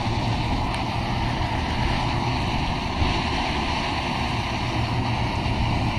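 MSR Pocket Rocket canister stove burner running steadily under a pot, with fish frying and sizzling in butter and onions. There is one light knock about three seconds in.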